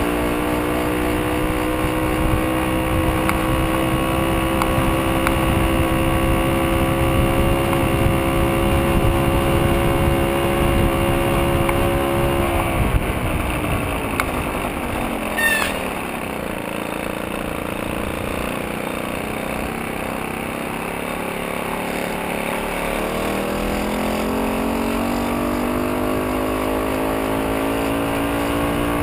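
VeloSoleX moped's small two-stroke engine running at a steady pitch, which drops as the moped slows about halfway through and climbs again as it picks up speed near the end, with wind rumble on the microphone. A brief high squeak comes just after the engine slows.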